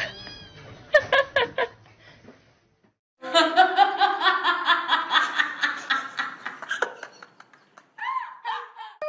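A person laughing in a quick run of chuckles lasting about four seconds, after a few short high squeaks near the start.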